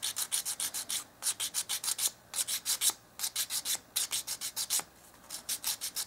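Emery board filing the end of a craft-stick wooden piece in quick back-and-forth strokes, about eight a second. The strokes come in short runs with brief pauses, and the filing evens out ends that sit unlevel.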